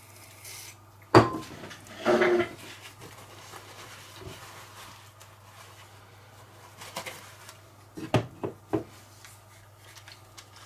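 Workbench handling noises: knocks and clicks as a small drill motor, a spray can and a paper towel are picked up, moved and set down. The loudest is a sharp click about a second in, followed by a short rustle a second later and a few lighter knocks near the end.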